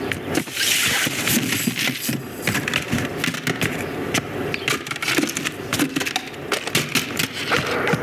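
Film sound effects with no music or dialogue: many quick knocks, scuffs and clatters of toys clambering over cardboard boxes, over a steady low rumble of the moving truck.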